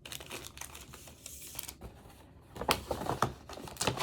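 Paper packaging rustling and crinkling as it is handled, a rapid run of small crackles, with a few sharper, louder crackles about two-thirds of the way through and near the end.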